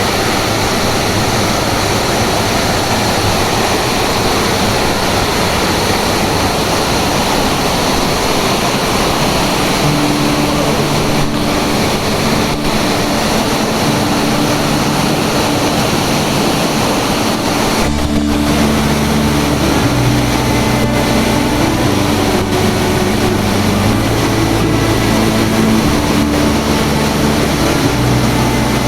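Steady rush of a waterfall. About ten seconds in, background music with sustained low notes and a bass line comes in over the water noise.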